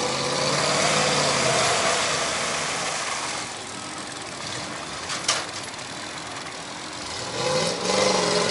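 Engines revving during a tow attempt to pull a Hummer stuck fast in deep mud: the revs climb near the start, drop back in the middle, then rise again near the end. A single sharp knock about five seconds in.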